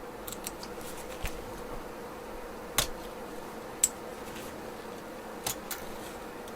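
A steady faint hum with a few light, sharp clicks of a small tool against the tablet's internals as its flex-cable connectors are unclipped.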